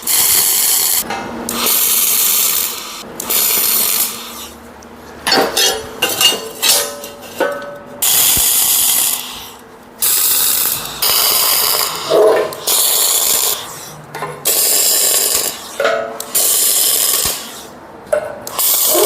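Wire-feed (MIG) welder arc crackling and hissing in repeated short bursts of one to two seconds each: tack welds being laid on steel plate. A few metallic clinks come in a quieter stretch near the middle.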